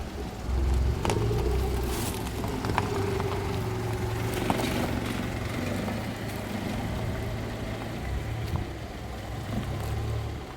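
An engine running steadily at a low, even speed, with scattered sharp clicks and knocks over it.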